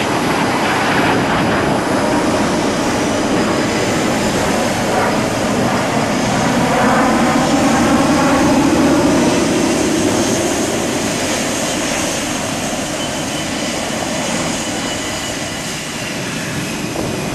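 Twin-engine F/A-18 fighter jet taxiing, its jet engines giving a steady loud rush with a faint high whine, swelling a little in the middle as the jet turns.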